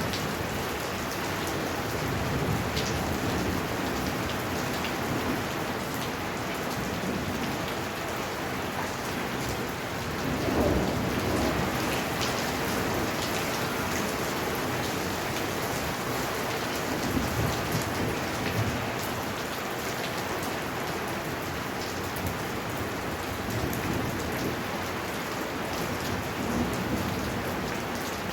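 Heavy rain pouring steadily, with scattered sharp drop impacts. A low rumble of thunder swells about ten seconds in.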